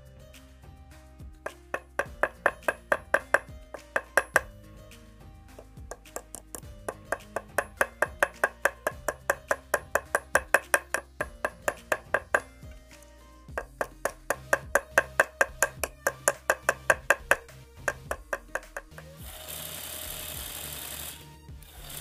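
Small hammer tapping a pin in a folding knife's handle against a steel block to peen it over: quick runs of light, ringing metal taps, about five a second, in three bursts. Near the end a homemade belt sander starts running with a steady rushing sound.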